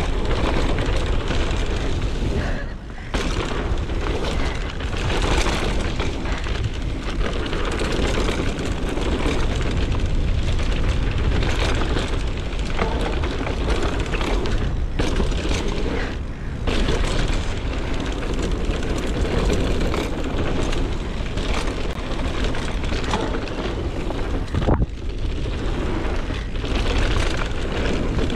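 Wind rushing over the microphone and the tyres running on the trail as a mountain bike is ridden, with a low rumble throughout and occasional knocks and rattles from the bike over bumps, the sharpest near the end.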